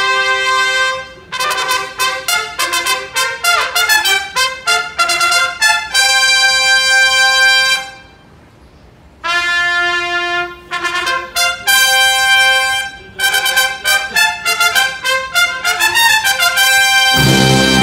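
Live trumpet fanfare played in short, bright phrases, with a pause of about a second and a half midway. Near the end the trombones and the rest of the brass come in underneath.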